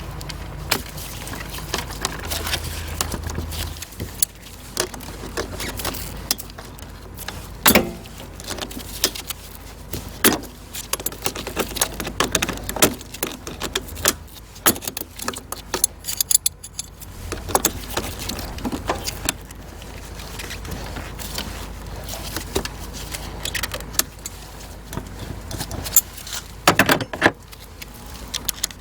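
Small metal tools and parts clinking and tapping in irregular clicks and knocks, as in hand work on an engine bay during a spark-plug change.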